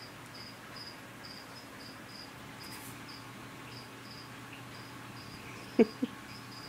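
Crickets chirping in a steady high-pitched pulse, two or three chirps a second. About six seconds in, two short sharp sounds a quarter second apart stand out as the loudest.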